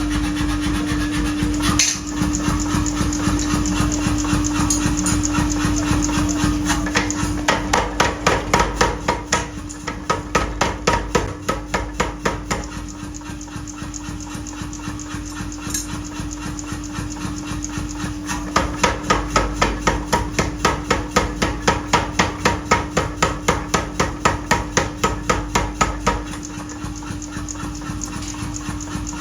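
Rapid, regular hammer blows on steel as axe heads are forged, several strikes a second, coming in louder runs that fade back. A steady machine hum runs underneath.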